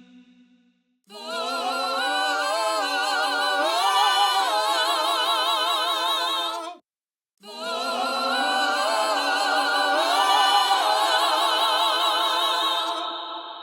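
Wordless solo singing with a strong vibrato, drenched in a spectral reverb vocal preset. Two long held phrases: the first cuts off sharply about seven seconds in, and the second trails off into a fading reverb tail near the end.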